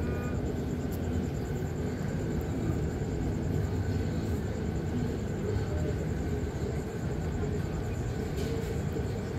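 Steady low rumble of a large MSC cruise ship's engines as the ship pulls out to sea, with a faint hum over it.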